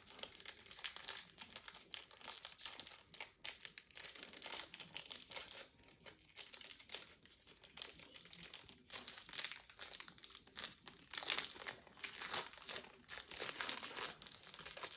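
Foil wrapper of a Pokémon trading-card booster pack crinkling in the hands as it is worked and torn open, an irregular crackle that gets busier near the end.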